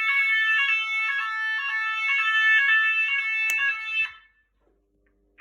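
Fire alarm sounder giving a loud, repeating electronic tone pattern during a test of the alarm system, with a sharp click about three and a half seconds in. The alarm cuts off about four seconds in.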